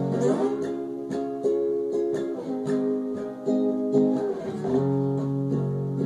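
A small acoustic string instrument strummed in a small room, playing chords with no singing, changing chord about two and a half and again about four and a half seconds in.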